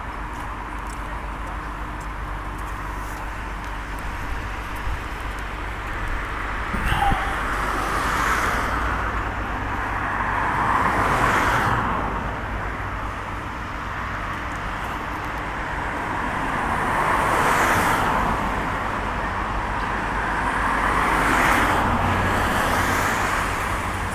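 Road traffic: four cars pass one after another, their tyre and engine noise swelling and fading over a few seconds each, over a steady low hum. A short knock comes about seven seconds in.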